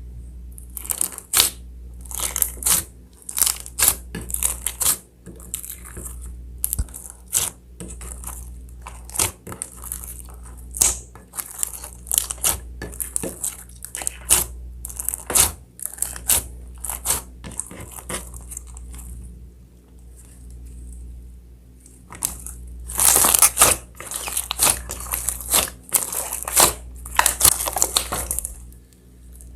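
Slime being mixed and squeezed, a long run of sharp crackling and popping clicks that thin out about two-thirds of the way through and then come thick and loud again.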